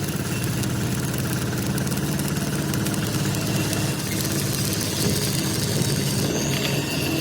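An engine running steadily at idle, with a constant low hum and a dense hiss over it.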